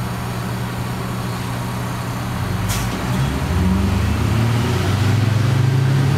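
Detroit Diesel 6V92TA two-stroke V6 diesel engine of a 1990 Flxible Metro B transit bus, heard from inside the bus, running steadily. Just under halfway in there is a short hiss, and from about halfway the engine grows louder as it pulls harder.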